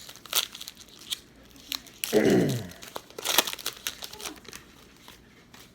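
Trading card pack wrappers crinkling and tearing as packs are opened and cards handled, in a run of sharp crackles and clicks. About two seconds in there is a short falling tone, the loudest sound.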